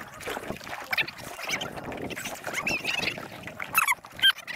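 Spinning reel being cranked in against a hard-pulling fish, the rod bent over. Short, high squeaks and chirps run through it, the loudest near the end.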